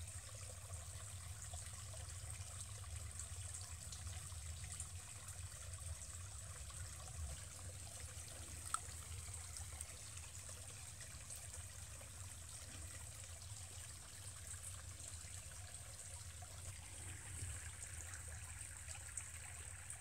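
Small stream trickling steadily over a little natural weir into a pool, a faint, even running-water sound. A single short click sounds about nine seconds in.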